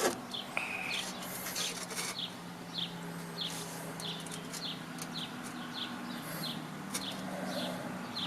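A small bird chirping over and over, short high chirps about twice a second, over a steady low hum. There are a few light clicks and scrapes in the first couple of seconds.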